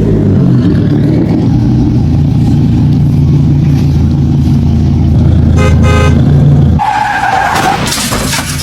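A vehicle engine running loudly and steadily, with a short horn-like toot about five and a half seconds in. Near seven seconds the engine sound cuts off and a high screech, like tyres skidding, takes over.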